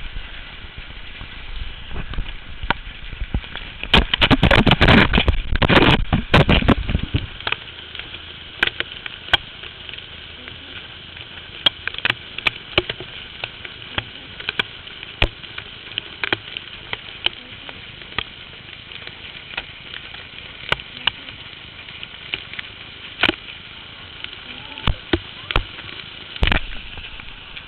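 Hailstones striking nearby surfaces in scattered, irregular sharp cracks and clicks. About four seconds in, a heavy gust of wind buffets the microphone for some three seconds.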